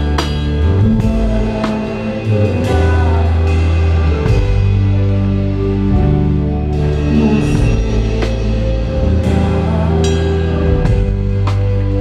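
Live band music heard from beside the drum kit: drums with cymbal crashes every couple of seconds over bass and held chords.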